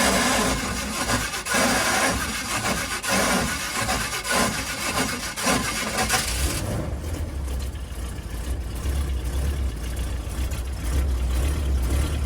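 A step van's starter cranks the engine with a harsh, grinding, evenly pulsing sound for about six and a half seconds. The van has a starter that keeps slipping and a bad flexplate. The cranking then gives way to a lower, steadier engine run, as if the engine has caught and is idling.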